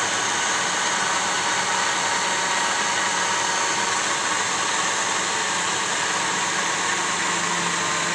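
Electric countertop blender motor running steadily, blending chopped plums and peaches with water into juice.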